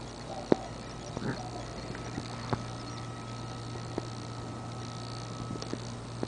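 Small dog playing with a plush toy on a lawn: faint short sounds and a few sharp knocks, the loudest about half a second in, over a steady low hum.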